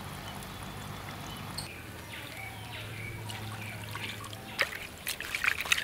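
Water poured from a coconut-shell ladle into a clay bowl, trickling and splashing in quick irregular drops. The splashing starts about four and a half seconds in and is the loudest sound.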